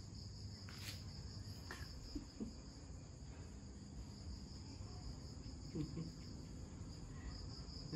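Crickets chirring steadily, a continuous high trill, with a couple of faint clicks in the first two seconds.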